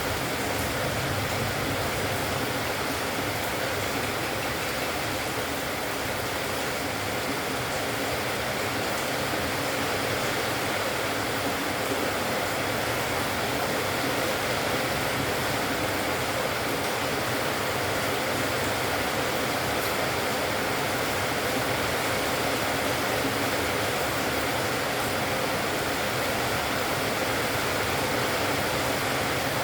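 Steady, even hiss with no distinct calls standing out.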